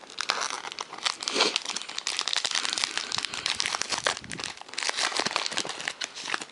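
A trading-card pack's wrapper crinkling and crackling as it is opened and handled.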